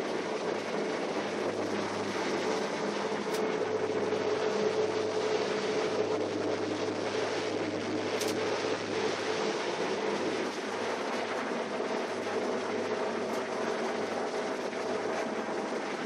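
A New Holland CR-series combine harvester's engine and threshing machinery running steadily while harvesting, heard from inside its cab: a dense, even machine noise with a steady hum and two brief clicks, about three and eight seconds in.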